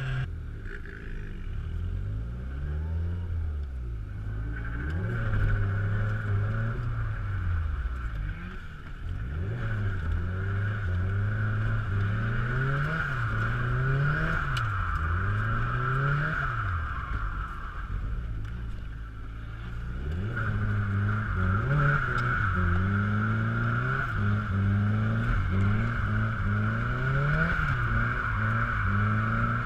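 Car's SR20 four-cylinder engine revving hard in a drift, its pitch climbing and dropping over and over as the throttle is worked. A steady high squeal runs over most of it, easing off briefly around the middle.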